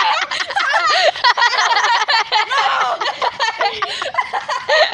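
People laughing hard, a continuous run of high, breathless giggles and snickers.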